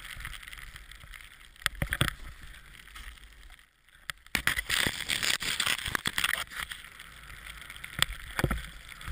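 Snowboard sliding over fresh snow: a steady hissing scrape with wind on the microphone, broken by a few sharp knocks. The sound drops almost to silence for a moment around four seconds in.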